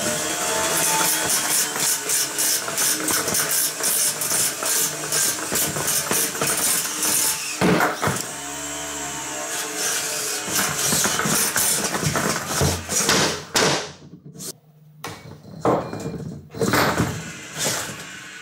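Beetleweight combat robot with its blade spinning at speed, a steady loud whir full of rattling and clattering as it jolts around a wooden test box. The pitch sweeps up and then down around the middle. About three-quarters through the noise drops away, leaving a few short separate bursts of spinning.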